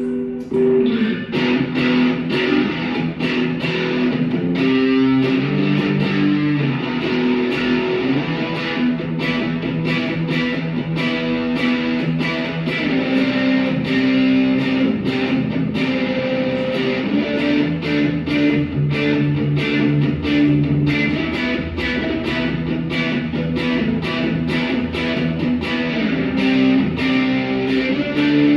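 Guitar-led music with a steady strummed rhythm.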